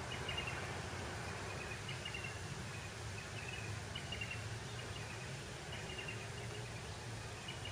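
Farm-field ambience: a steady low rumble and hiss, with short high chirps repeating every second or two.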